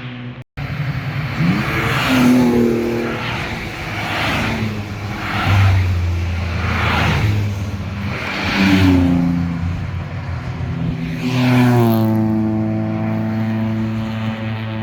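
Car engines revving hard and accelerating past, their pitch rising and falling again and again as they run through the gears. Near the end one engine holds a steadier pitch as it passes.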